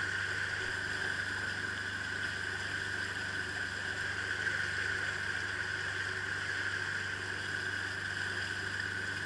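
Boat engine running steadily under way: a constant drone with an unchanging higher whine over it.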